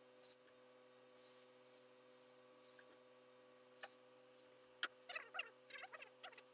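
Faint rustling of wool suit-trouser fabric as hands lift, turn and smooth it on a pressing table. There are a few soft swishes at first, then a run of small scratchy rustles and clicks about five seconds in, over a low steady hum.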